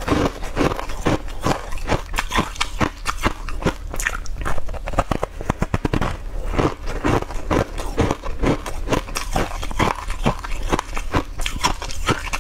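Close-up crunching and chewing of a crunchy green-coated Chinese sweet ball, with many sharp crunches a second as it is bitten and chewed.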